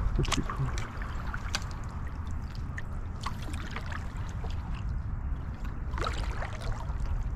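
Creek water lapping and trickling around a drifting kayak, with scattered small ticks and drips against the hull.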